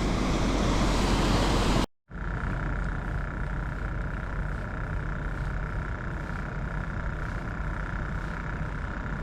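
Steady rushing of river water where an inflow runs into the river, cut off by a brief dropout about two seconds in and then resuming unchanged.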